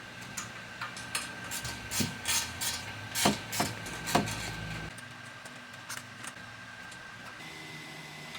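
Scattered knocks, clicks and scrapes of hand-tool work, most of them in the first half, over a faint steady high-pitched tone.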